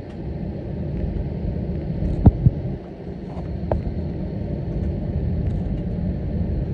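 Cabin noise of an Airbus A321neo taxiing after landing: a steady low rumble and hum from the engines and wheels, with two sharp knocks in quick succession a little over two seconds in.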